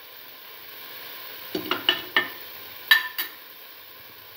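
Tomato pieces sizzling steadily in a hot frying pan while a spoon stirs them, knocking against the pan in a quick run about a second and a half in and twice more around three seconds in.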